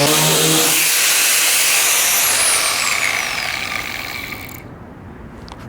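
Power sanders grinding paint off a car's steel roof. A motor hum stops under a second in, and a whine falls steadily in pitch as a tool spins down. The grinding noise cuts off sharply a little over four seconds in, leaving a few faint clicks.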